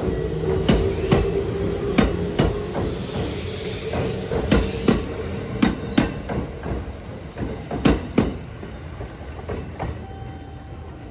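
Kintetsu 8000 series train pulling away. Its wheels clack over rail joints in close pairs as each bogie passes, over a steady running rumble. The clacks and rumble grow fainter near the end as the train moves off.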